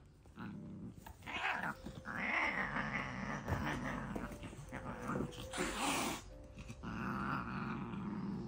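Black cat growling and hissing, in rising and falling stretches starting about a second in, as another cat paws at it in a scuffle.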